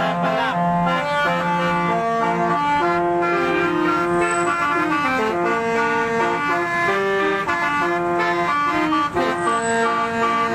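Old-style musical car horn playing a tune: sustained horn notes, several sounding at once, stepping from note to note without a break.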